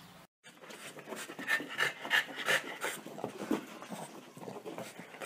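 A dog panting in quick, repeated breaths, about three a second.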